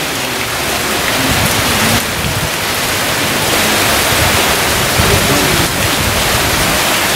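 Heavy rain pouring onto a wet road, a steady dense hiss.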